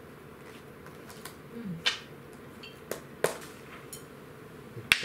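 A few sharp clinks and taps of chopsticks and dishes on tableware as food is served at the table, the loudest about two seconds in.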